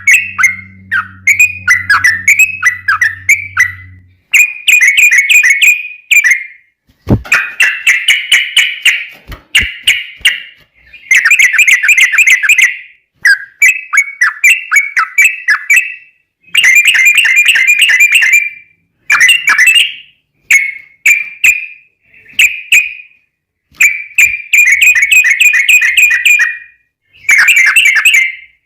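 Yellow-vented bulbul (trucuk) singing a long rolling song: loud runs of rapid, bubbly chattering notes lasting one to three seconds each, repeated with short breaks between them.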